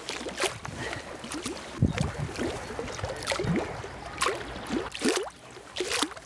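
Water gently lapping and gurgling, heard as irregular small clicks and short gurgles.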